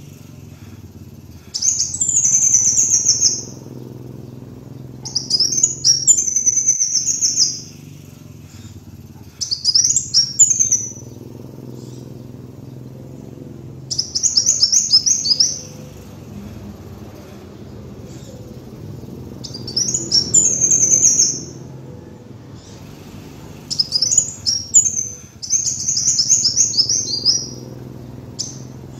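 Kolibri wulung sunbird singing: high-pitched, rapid trilled phrases of a second or two each, about seven in all with short pauses between, over a faint steady low hum.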